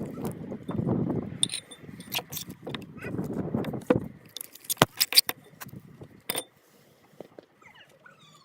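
Glue-and-cornstarch slime being stirred in a bowl: squelching in two stretches over the first four seconds, with sharp clicks of the stirring utensil against the bowl, then only a few faint ticks.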